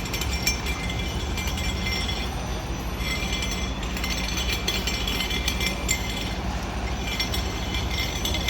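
Irregular metallic clinking and rattling over a steady low rumble.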